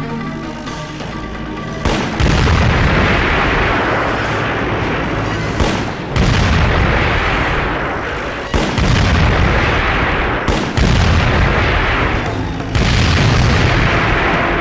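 Film explosion effects for a burning jeep blowing up: after about two seconds of music, a string of heavy booms, one every two to three seconds, each starting suddenly and rolling away.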